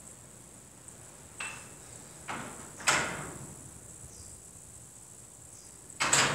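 Several sharp knocks and clanks of gym weights, the loudest about three seconds in and another near the end, over a faint steady high-pitched hiss.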